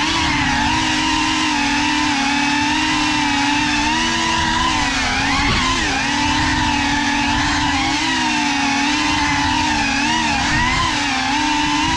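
Geprc Cinelog 35 FPV drone's motors and propellers whining steadily, the pitch wavering up and down with the throttle.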